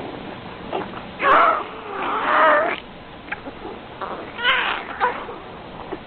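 Cat-like meowing and yowling: three longer wavering calls, the first about a second in, with a few short chirps between them, thin and low-fidelity.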